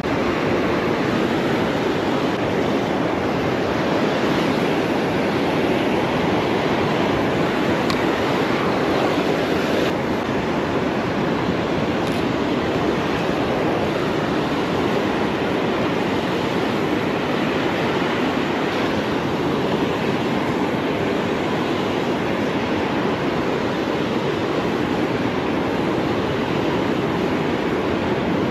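Ocean surf breaking and washing up a sandy beach: a steady, unbroken wash of noise.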